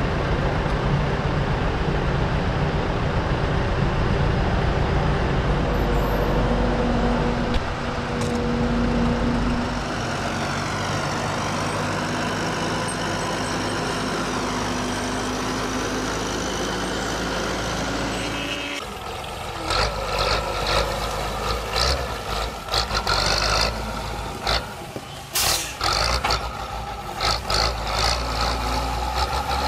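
Diesel engine of a John Deere compact track loader running steadily under work, its pitch shifting about 8 seconds in. About 19 seconds in the sound changes abruptly to a small loader tractor's engine, choppier and uneven with repeated knocks and clatter.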